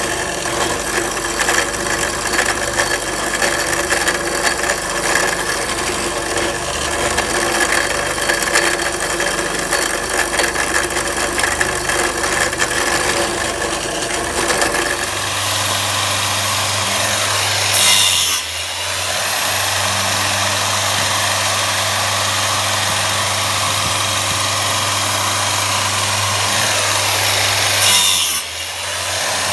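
An electric drill boring holes into small pieces of wood held in a metal drilling jig. About halfway through it gives way to a circular saw running along a rail guide and cutting wood: a steady motor hum that twice grows briefly louder and then dips.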